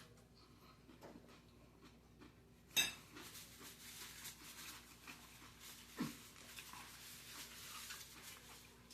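Faint eating noises: a sharp click about three seconds in, then soft crackly chewing and food-handling sounds with another small knock near the middle.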